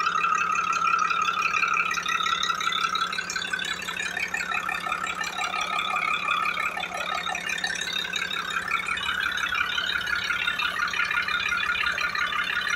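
Diesel engine running, with a steady, dense metallic clatter.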